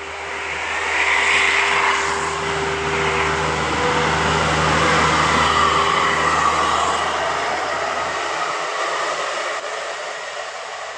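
A bus driving past, its engine and tyre noise building about a second in, holding loud, then fading away.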